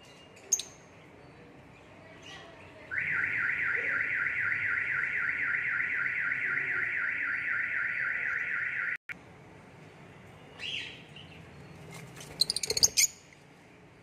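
Birds chirping in a lovebird aviary: a loud, very even, rapidly repeating chirping trill lasts about six seconds and cuts off suddenly, and a quick cluster of short, sharp, high chirps comes near the end.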